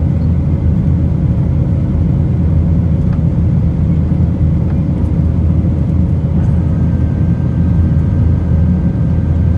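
Steady cabin noise aboard a Boeing 737-900 climbing out: the low roar of its CFM56 turbofans and airflow heard from a window seat over the wing, with a faint steady whine. A second, higher faint tone comes in about six and a half seconds in.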